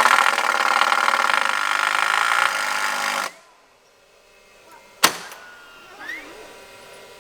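Pickup truck engine running steadily, then switched off about three seconds in. About two seconds later comes a single sharp knock.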